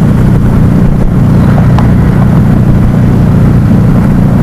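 Motorcycle cruising at highway speed: a loud, steady engine drone under a rush of wind noise.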